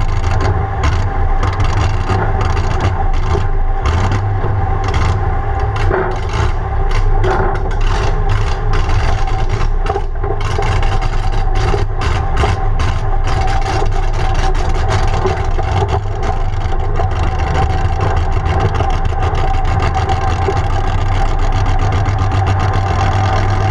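Holden grey-motor straight-six in an open dragster, running at low speed under light throttle: a steady, loud engine note broken by a rapid, uneven crackle of exhaust pulses.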